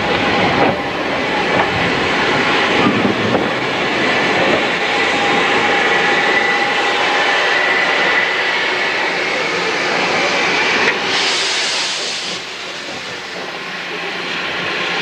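Saddle-tank steam locomotive Irwell working close by, with a steady hiss and rumble of steam. About eleven seconds in, a louder sharp hiss of steam lasts about a second and a half and then cuts off suddenly.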